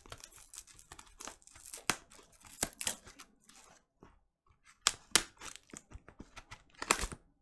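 Scissors cutting open a cardboard record mailer: irregular snips and crackles of the cardboard, with a short pause about four seconds in.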